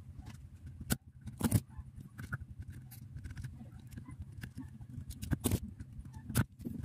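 Spring-loaded desoldering pump (solder sucker) working on a circuit-board joint: several sharp clacks as its plunger is cocked and snaps back, sucking up molten solder. A steady low hum runs underneath.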